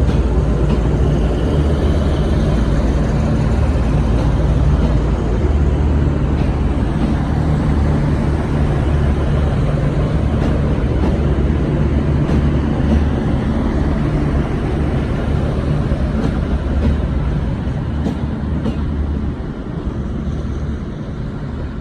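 Diesel engines of a V/Line VLocity diesel multiple unit running with a steady low drone, with occasional clicks. The drone eases slightly near the end.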